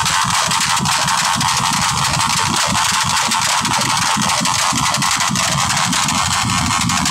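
Motorcycle engine running loud and steady, revved hard.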